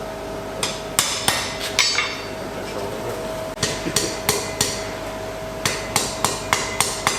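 Blacksmith's hand hammer striking iron on an anvil in three bursts of sharp blows, about four, then four, then seven, over a steady faint hum.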